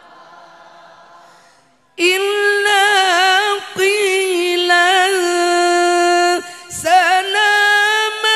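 A woman sings a Quranic verse unaccompanied into a microphone, in a slow, ornamented melody with long held notes that waver in pitch. It comes in loudly about two seconds in, after a quiet, fading echo, and breaks briefly twice for breath.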